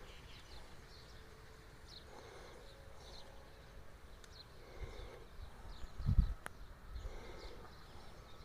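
Faint short bird chirps over outdoor ambience, with a low thump about six seconds in followed by a sharp click.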